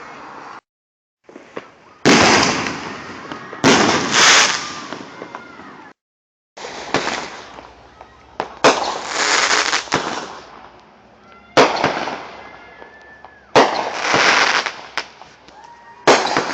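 Consumer fireworks going off in a series of about seven loud bangs, roughly one every two seconds, each followed by a hiss that fades away.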